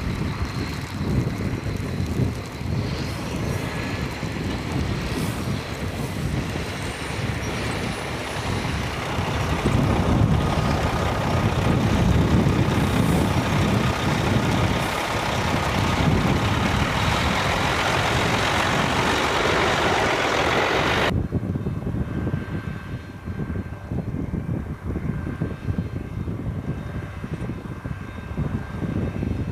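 Heavy snow-removal vehicles running, a deep steady engine drone with the rush of snow-clearing machinery; it grows louder partway through and changes abruptly about two-thirds of the way in.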